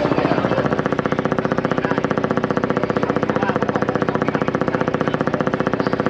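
Boat engine running steadily, a fast, even chugging.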